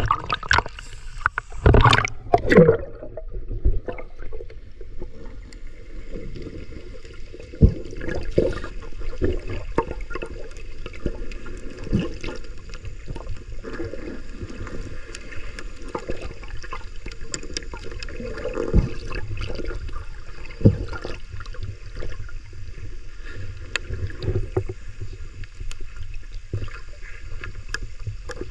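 Water splashing for the first few seconds as the camera goes below the surface, then the muffled, low underwater wash heard through a camera's waterproof housing, with many small clicks and a few louder knocks.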